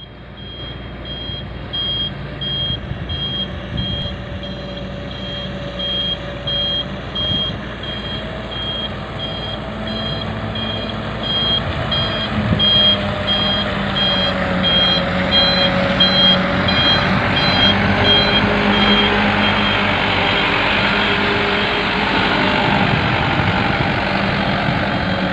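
Diesel engines of an excavator and dump truck running, with a reversing alarm beeping steadily over them. The beeping stops about two-thirds of the way through, and the engine noise grows louder near the end.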